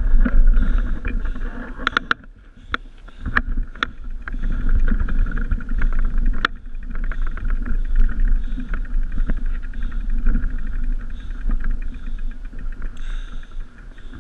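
Bicycle riding a dirt trail heard through a GoPro: a steady rumble of wind and tyre noise with the rattle of the bike over the ground. It eases off about two seconds in, with a few sharp knocks over the next couple of seconds and another about six seconds in.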